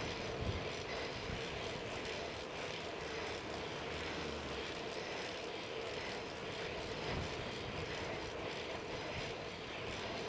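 Steady rush of wind and tyre noise from a bicycle riding along an asphalt street, with a constant hum underneath.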